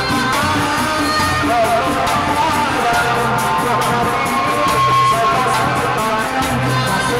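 Live kuda renggong procession music: a large frame drum struck with a padded mallet and small drums beaten with sticks keep a steady beat, under a held, wavering melody and a woman singing through a microphone and loudspeaker.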